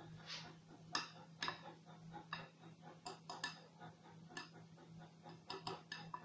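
Faint, irregular small clicks and ticks, some in quick pairs, over a steady low hum.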